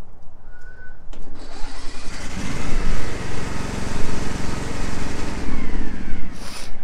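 Riding lawnmower engine cranked over by its electric starter on a cold start with the choke on, catching after about a second of cranking and running. Near the end its pitch falls as it winds down, and a short sharp noise follows.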